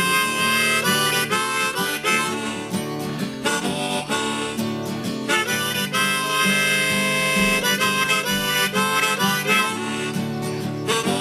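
Blues harmonica playing an instrumental break in held chords over a strummed acoustic guitar.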